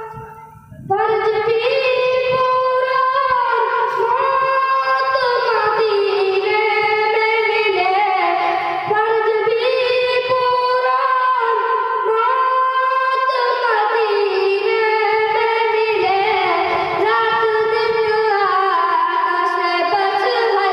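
A boy's high voice singing a naat, a devotional song, into a microphone, in long held notes that slide and waver between pitches. There is a short break at the very start before the next line begins.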